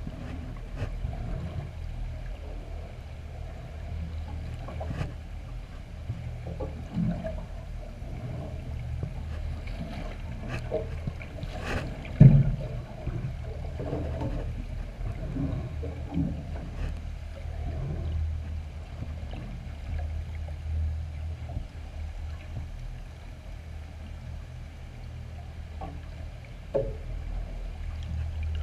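Muffled underwater sound picked up by a GoPro in its housing: a steady low rumble with scattered faint clicks and one louder knock about twelve seconds in.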